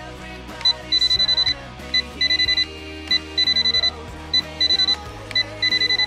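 Electronic beeping, a high single-pitched beep: one short beep followed by a quick run of rapid beeps, the pattern repeating about every second and a quarter, over background music.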